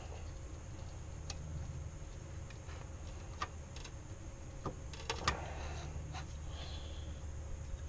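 Scattered light clicks and taps from hands and tools working at the serpentine belt and tensioner in an engine bay, with a few sharper clicks about five seconds in, over a steady low hum.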